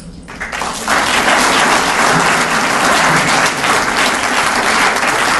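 Audience applauding: scattered claps in the first second quickly swell into full, steady applause.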